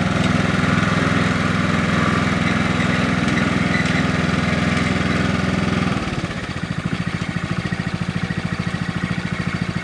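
Riding lawn mower engine running steadily, then about six seconds in easing off to a lower, evenly pulsing note.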